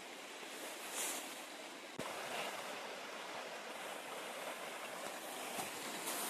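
A mountain stream rushing steadily, with a single sharp knock about two seconds in.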